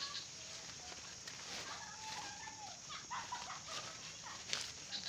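Domestic chickens clucking and calling in short, scattered bent calls, with a few light clicks and rustles from galangal stems being handled and tied.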